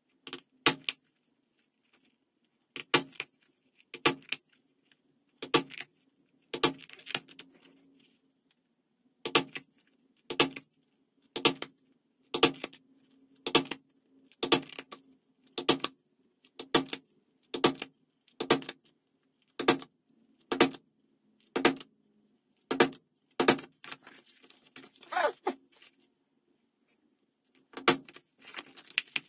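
A mallet striking a metal punch through vegetable-tanned leather: a long series of sharp blows, about one a second, over a faint steady hum.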